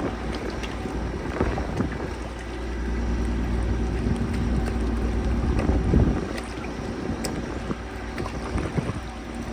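A vehicle's engine running as it drives through a flooded ford, with water churning around it and wind buffeting the microphone; the sound swells about six seconds in.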